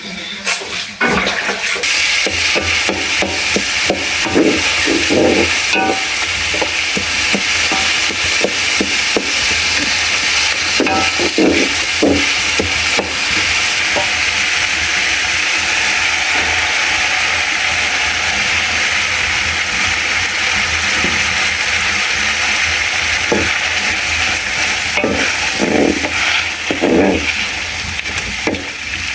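Food sizzling as it fries in a pan, a steady hiss, with frequent short knocks and scrapes of a spoon stirring it.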